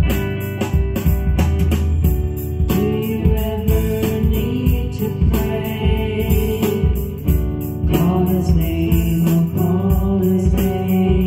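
Gospel song: a voice singing over guitar with a steady beat, the singing coming in about three seconds in.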